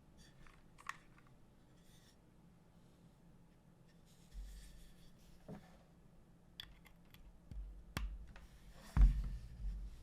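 A few scattered, irregular clicks and light knocks from hands at a Preonic mechanical keyboard, with one louder, deeper thud about nine seconds in. This is not steady typing.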